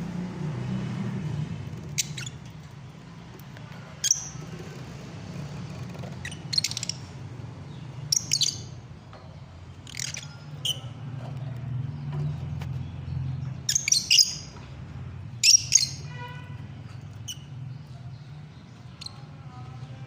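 Lovebirds giving short, sharp, high chirps every second or two, some in quick pairs, over a steady low hum.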